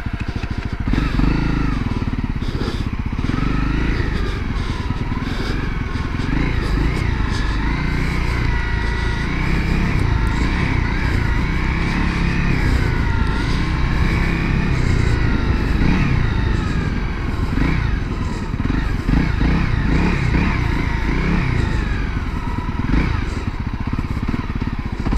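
Honda CRF250L's single-cylinder four-stroke engine running with the revs rising and falling as the throttle is worked.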